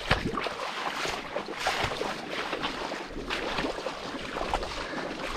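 Footsteps wading through shallow swamp water: irregular splashes and sloshes with each stride.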